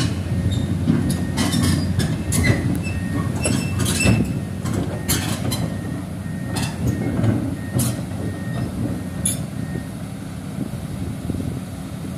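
Komatsu PC200 excavator's diesel engine running under load while its steel crawler tracks clank and squeal irregularly on the truck's steel loading ramp as it is driven up.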